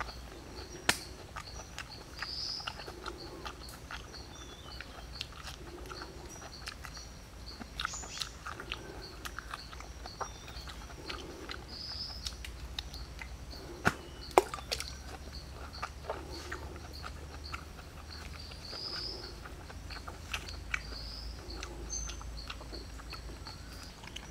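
Sharp clicks and snaps from a piece of ripe jackfruit being pulled apart and eaten, with two louder snaps, one about a second in and one just past the middle. Under them: scattered bird chirps and a soft low call repeating every couple of seconds.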